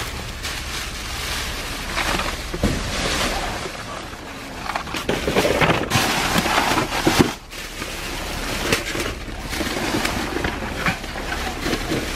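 Plastic trash bags rustling and items knocking and clattering as they are rummaged through in a dumpster, in irregular bursts.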